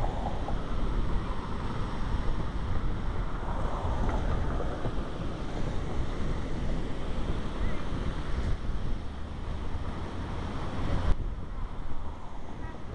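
Wind noise on the camera microphone: a steady low rumble and rush.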